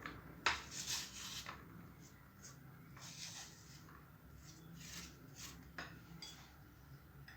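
Apple being grated on a hand grater: a series of irregular rasping strokes, with a sharp click about half a second in. Each stroke goes in one direction only so the apple does not give up its juice.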